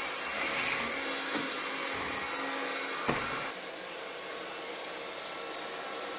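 Philips FC6726/01 cordless stick vacuum cleaner running with a steady whirring hiss. A few soft thumps and one sharp knock come about three seconds in, after which the running sound is a little quieter.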